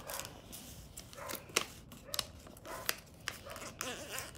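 Origami paper being folded and creased by hand: scattered crisp crinkles and short sharp clicks as the sheet is pressed flat.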